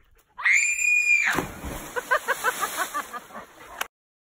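A girl's scream, rising and then held for about a second as she leaps off a rock cliff, ends as she hits the lake with a splash, followed by quick excited voices. The sound cuts off suddenly near the end.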